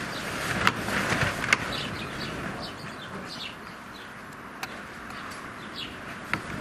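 House sparrows chirping in short, quick calls over steady background noise, with a few sharp clicks.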